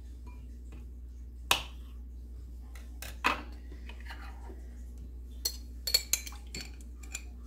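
Scattered clinks and knocks of glassware and a utensil as olives are handled: olives dropped into a glass bowl, then a fork clinking inside a glass olive jar, a quick cluster of clinks about six seconds in.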